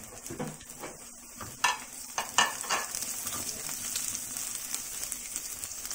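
Chopped onion, garlic and ginger sizzling in hot oil in a nonstick wok as a spatula stirs them, with several sharp knocks of the spatula against the pan about two seconds in; the sizzle grows fuller as the onion heats.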